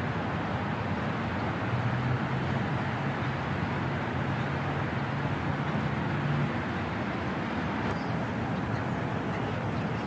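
Heavy construction machinery running: a steady din of diesel engines, with one engine's low hum standing out from about two seconds in until past six seconds.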